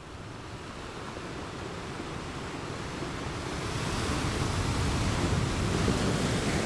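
Ocean surf breaking and washing onto a cobble beach, with some wind on the microphone; the rushing noise swells steadily and is loudest in the second half.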